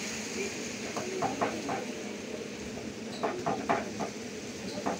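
Puris frying in hot oil in a kadhai: a steady sizzle, with two short clusters of light taps and scrapes as the metal ladle works against the pan.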